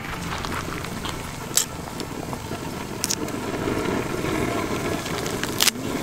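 A large pot of water at a rolling boil on a burner: a steady rushing, bubbling noise, with three sharp clicks.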